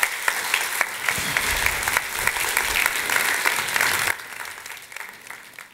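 Audience applauding, many hands clapping at once; the applause drops away sharply about four seconds in and fades out.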